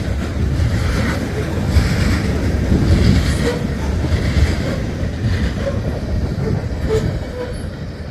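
CSX freight train's cars rolling past, steel wheels rumbling and clacking over the rail joints, getting a little quieter near the end.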